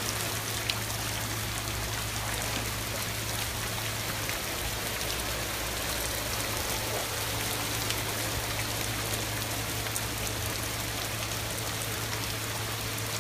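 Steady rain falling on floodwater, an even hiss dotted with scattered sharp drop ticks.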